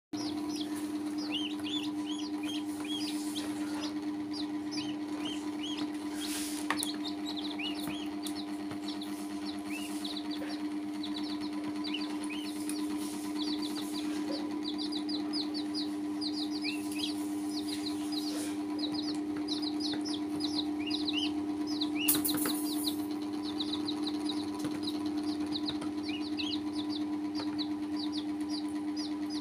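Baby chicks and a duckling peeping, with many short high peeps in quick runs, over a steady low hum.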